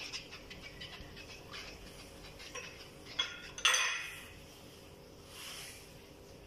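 Metal utensil clinking and scraping against cookware as cornstarch is added to teriyaki sauce. Light rapid scraping at first, then two sharp clinks about three and a half seconds in; the second is the loudest and rings briefly.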